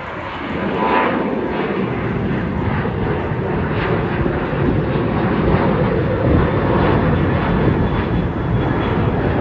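Jet engines of a Boeing 737 airliner climbing out just after takeoff: a steady, loud rumble.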